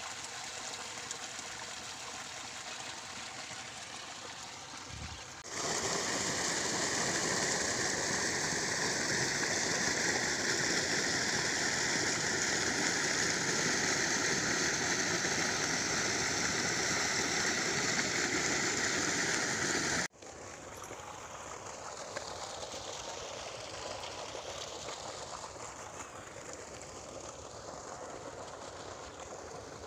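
Irrigation water gushing from a tubewell outlet pipe into a field channel, a steady rushing noise. It turns suddenly louder about five seconds in and suddenly quieter again about twenty seconds in.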